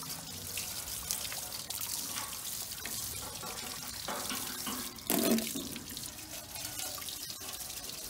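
Garden hose spraying water, a steady hiss of running and splashing water, with a brief louder sound about five seconds in.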